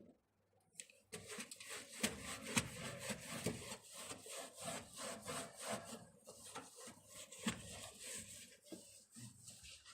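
Scrubbing by hand, quick back-and-forth rubbing strokes against a hard surface, starting about a second in and going on steadily.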